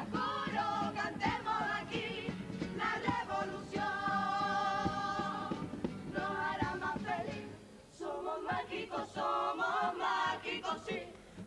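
Cádiz carnival comparsa singing as a choir in harmony, with instrumental accompaniment and percussion strokes; the music drops briefly about eight seconds in and then the singing picks up again.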